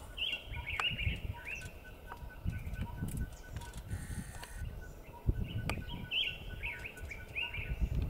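A songbird singing short phrases of quick, curved chirping notes, once near the start and again about six seconds in, over a low rumbling background.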